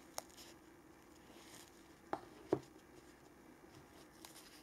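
Quiet handling of nylon flashlight holsters: a light tick near the start, then two soft taps close together about two seconds in as a holster is set down on a wooden table.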